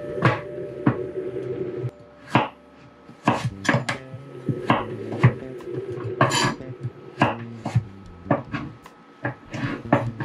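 Kitchen knife cutting carrots on a wooden cutting board: irregular knocks as the blade goes through the carrot and strikes the board, roughly two a second with short pauses.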